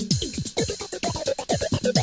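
Electronic dance music with a steady beat of deep drum hits that fall in pitch, several a second, over ticking hi-hats, with a melody coming in about half a second in.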